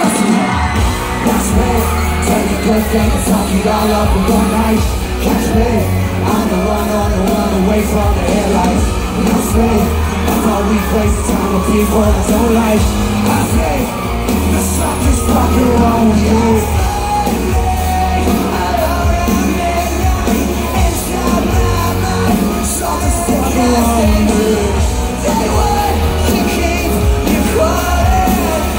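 Live band playing loud through a concert PA with a steady heavy beat, and vocals yelled and sung over it.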